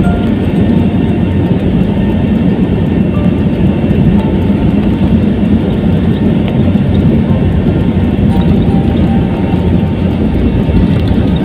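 Steady low rumble of an airliner rolling along the runway, heard from inside the passenger cabin: jet engine noise mixed with wheel and tyre rumble.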